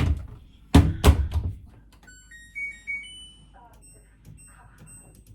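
Three heavy thumps within the first second and a half, then a household appliance's electronic beeps, a short run of single tones stepping upward in pitch, followed by fainter repeated high beeps.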